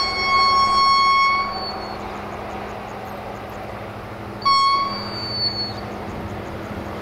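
Horn of an approaching LDE 060-DA diesel-electric locomotive: one long blast lasting about a second and a half, then a short blast about four and a half seconds in. The locomotive's diesel engine hums steadily underneath.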